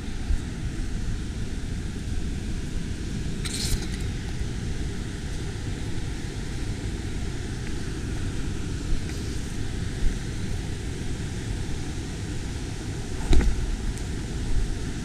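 Steady rushing roar of a river waterfall and rapids, with a couple of footstep scuffs on the trail, the loudest a thump near the end.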